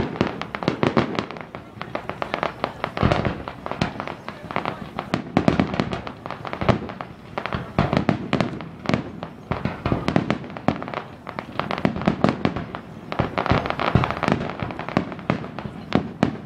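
Fireworks display: a dense, continuous run of bangs and crackling bursts, many a second.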